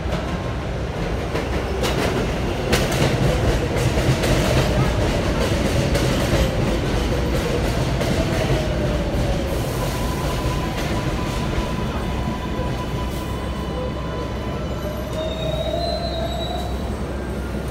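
New York City subway 7 train running on its tracks: a steady rumble of wheels on rail with scattered clicks, louder for a few seconds near the start, and thin wheel squeals that come and go.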